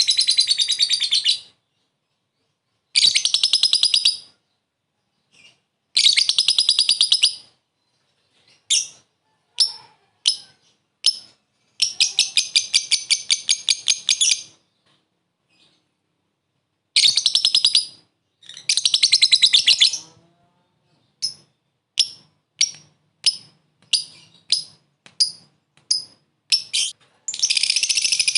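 Lovebird giving short bursts of ngekek, a rapid, high chattering trill of about ten notes a second, each burst one to two and a half seconds long with pauses between. Twice there are strings of single sharp chirps instead. It is a call to rival lovebirds, used to lure and provoke them.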